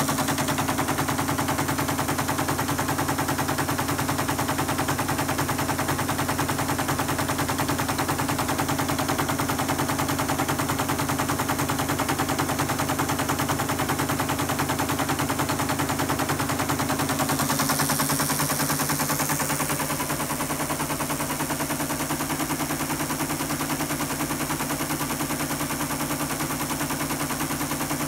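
ASR-33 Teletype's paper tape reader clattering in a rapid, even stream as it reads punched paper tape of Microsoft BASIC into an Altair 8800, with the Teletype's motor humming steadily underneath.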